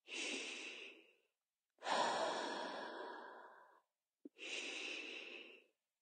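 A person taking long, slow, deep breaths in and out: three separate audible breaths of one to two seconds each, as a deep-breathing exercise.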